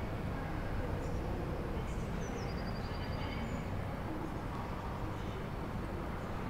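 Steady low city background rumble, with a brief high chirping trill, a falling note then a quick run of short notes, about two seconds in.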